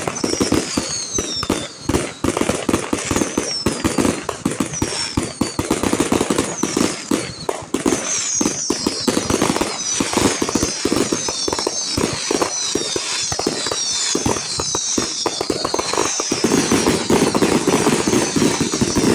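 Fireworks going off in a dense, continuous barrage of rapid bangs and crackles, with repeated falling whistles that thicken about eight seconds in.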